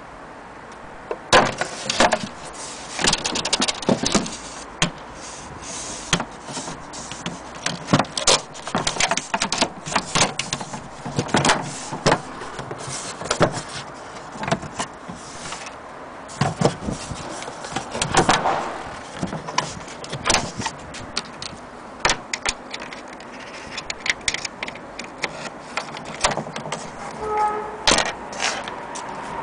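Irregular clicks and knocks from handling the wooden carrying case of a Singer 99k sewing machine: the lid, its metal latch and the handle being moved.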